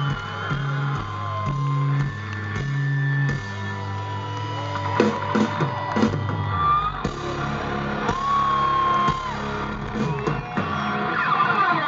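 Live rock band playing loud through a concert PA, with electric guitar, bass and drums and a driving bass rhythm. Whoops and yells come from the crowd, thickening near the end.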